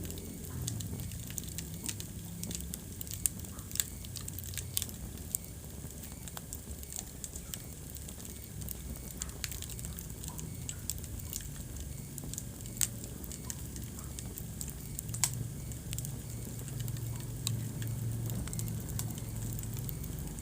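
Wood fire burning in a fireplace, crackling with irregular sharp pops over a low steady rumble, a few pops louder than the rest.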